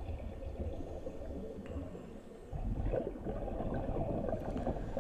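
Muffled underwater water noise with a low rumble, heard through a GoPro's waterproof housing, getting louder about two and a half seconds in.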